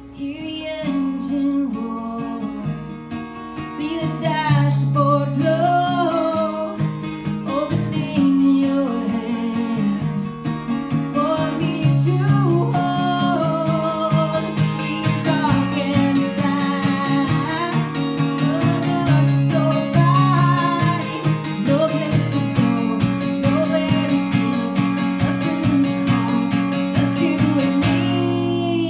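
A woman singing a song live, accompanying herself on an acoustic guitar.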